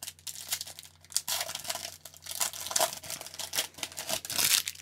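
Foil wrapper of an Upper Deck hockey card pack being torn open and crinkled as the cards are slid out: a string of crackling rustles, loudest near the end.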